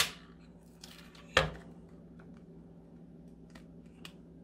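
Handling sounds on a craft table: a sharp click at the start, then one hard knock with a low thump about a second and a half in as the work tile is moved on the wooden table, followed by a few faint clicks.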